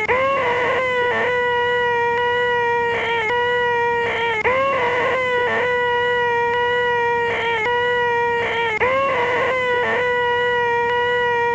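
A man's voice holding a loud, high-pitched, nasal 'eeeeh' whine: the 'most annoying sound in the world'. The sound is looped, so it restarts with a short upward bend in pitch about every four and a half seconds.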